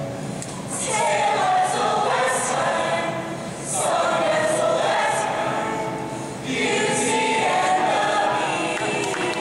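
Large group of voices singing together in chorus, in three phrases with short breaks between them.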